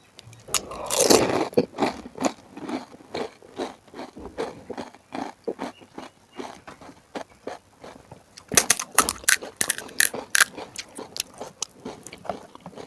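Close-miked crunching and chewing of crisp panipuri shells: a loud crunching bite about a second in, rapid crunchy chewing, and another run of loud crunches about two-thirds of the way through.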